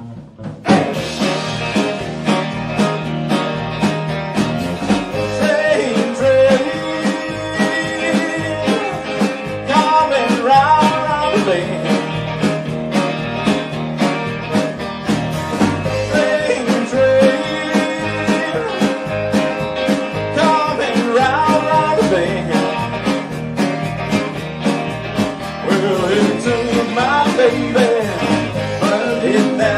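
A rock and roll band playing live: electric guitars, electric bass and drums with a sung lead vocal, a steady beat. The song kicks in about a second in after a brief pause.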